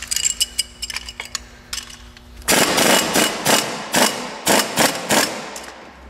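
A few metallic clicks, then about two and a half seconds in a 3/8-inch air impact wrench, driving through a Tite-Reach extension wrench, hammers on a fastener in a string of short bursts for nearly three seconds. The impact is running with the compressor switched off, and the mechanic thinks the air pressure had run low and left it short of force.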